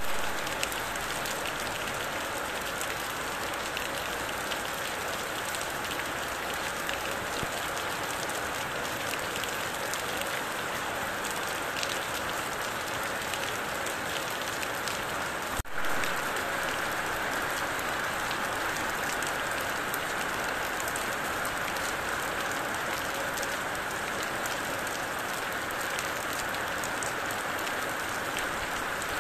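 Steady rain falling, the hiss of it dotted with many small drop ticks. The sound briefly drops out and comes back about halfway through.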